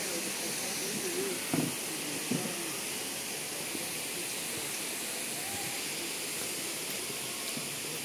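Steady rushing hiss of a waterfall, with faint distant voices early on and two brief knocks about one and a half and two and a half seconds in.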